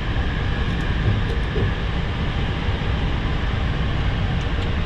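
Steady loud rushing noise of running aircraft systems and ramp equipment heard in a Boeing 737-700 cockpit, with a few faint clicks near the end as overhead-panel switches are flipped.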